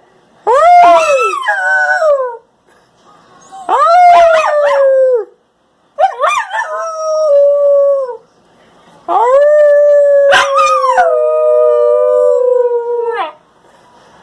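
Husky-shepherd mix puppy howling: four drawn-out howls with short pauses between them, each rising at the start and then sliding down in pitch, the last one the longest.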